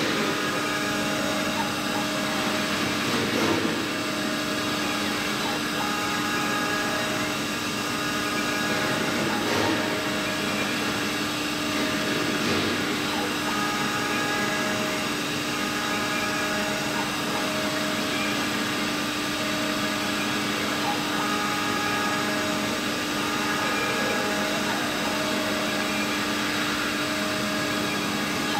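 Mini 5-axis CNC milling machine running: a steady motor whine and hum, with several higher tones that switch on and off every few seconds.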